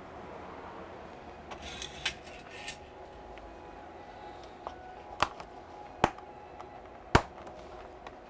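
A few sharp clicks and taps from handling a MacBook Pro's aluminium bottom case with a blue plastic opening tool: light rustling clicks about two seconds in, then three sharp clicks about a second apart, the last the loudest.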